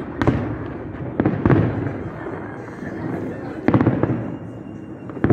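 Aerial fireworks shells bursting overhead: about five sharp bangs, the middle ones in close pairs, each trailing off in a low rumble.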